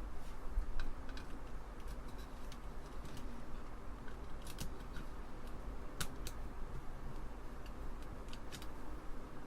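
Scattered light clicks and ticks of small screws being started with a screwdriver in a keyboard assembly, irregularly spaced, over a steady low hum.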